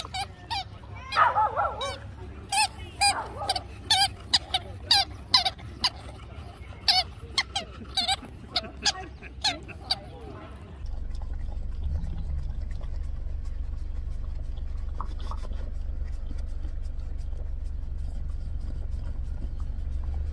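A dog barks in short, sharp yaps, one or two a second. About eleven seconds in they give way to a steady low rumble of a car cabin.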